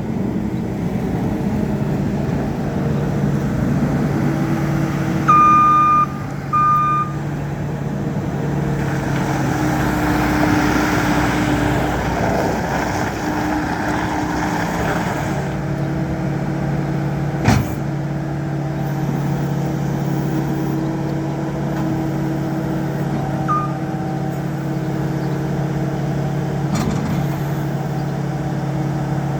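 2019 Case SR270 skid steer's diesel engine running steadily. Two loud beeps sound about five seconds in, and a single sharp click comes about halfway through.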